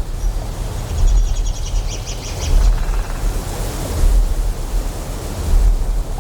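Ambient soundscape of a deep generator hum that swells and eases about every one and a half seconds, over a wash of flowing water. About a second in, insects chirp rapidly for a second or so.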